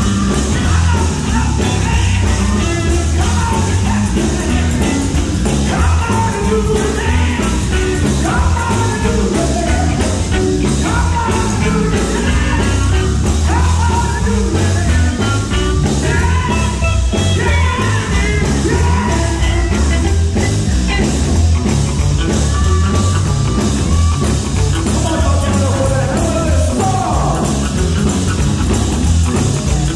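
A gospel group singing live over an electric guitar and band, played loud.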